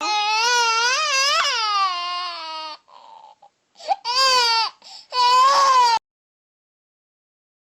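Infant crying: one long cry of nearly three seconds with a wavering pitch, a faint whimper, then two shorter cries of about a second each, cut off abruptly into silence.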